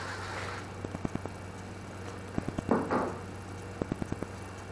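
A machine's running noise dies away at the start, leaving a low hum. Then come scattered light clicks and knocks, with a short sliding rub about three seconds in, as the table saw's rip fence is handled and slid along its aluminium rail.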